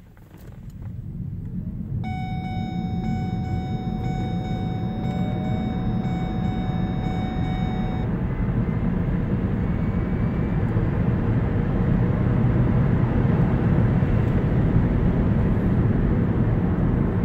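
Road and tyre noise inside the cabin of a 2012 Ford Focus Electric accelerating up a hill, growing steadily louder as speed builds. About two seconds in, a steady high tone with overtones starts and cuts off abruptly some six seconds later.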